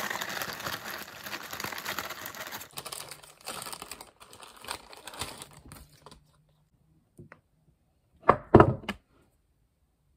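Plastic packaging crinkling and tearing as it is opened by hand, for about six seconds. Then, after a short quiet spell, three or four sharp, loud knocks in quick succession.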